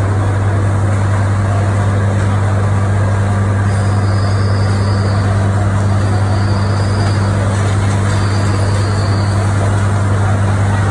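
Fire trucks' engines running steadily, a deep constant drone under a wide rushing noise. A high tone sounds three times in the middle of it.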